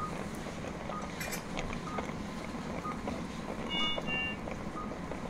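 Patient monitor in an operating theatre beeping regularly: short, faint, same-pitched beeps about every half second, over a steady low equipment hum. A brief two-note electronic chime sounds about four seconds in.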